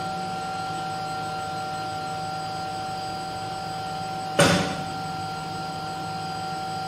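AT225 lab melt spinning machine's winding unit running: a steady electrical hum with a few steady whining tones. One sharp knock about four and a half seconds in.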